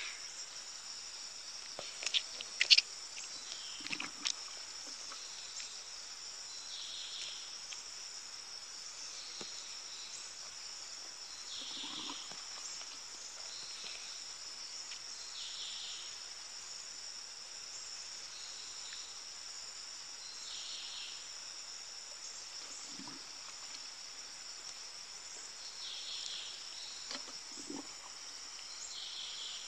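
Steady, high-pitched chorus of insects chirring in the surrounding vegetation, with a few sharp knocks in the first few seconds and a few soft, faint thumps later on.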